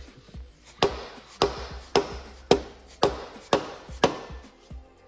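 Orange plastic hammer striking the turbocharger, seven sharp blows about two a second, stopping about four seconds in. The turbo is being knocked into its flange because it is not seated far enough for the V-band clamp to close.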